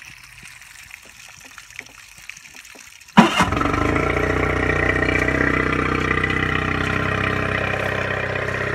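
Yamaha 9.9 high-output four-stroke outboard motor starting about three seconds in, catching at once with a sharp burst, then running steadily at idle.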